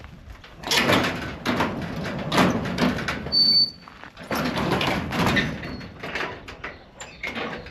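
Steel-clad sliding barn door being slid shut along its track in two long pushes, with a few smaller knocks near the end.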